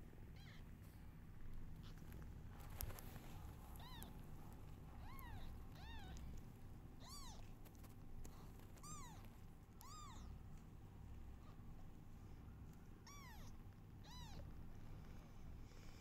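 Newborn kittens mewing: faint, thin, high-pitched cries, each a short rise and fall, about nine of them spread through, some in quick pairs. A single sharp click about three seconds in.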